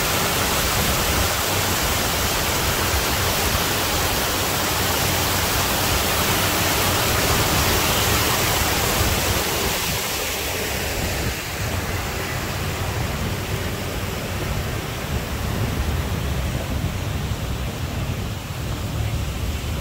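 A steady, loud rushing hiss with no distinct tones or beats. It turns duller and slightly quieter about eleven seconds in.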